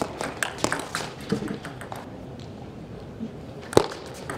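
Table tennis ball clicking sharply off the rubber bats and the table during a fast rally: a quick run of hits in the first second and a half, then a single loud click near the end.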